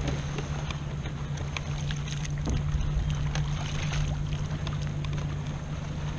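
Water splashing and dripping, with small plastic knocks, as a fish-measuring board is pulled from the lake and handled on a kayak. A steady low hum and wind-and-water noise run underneath.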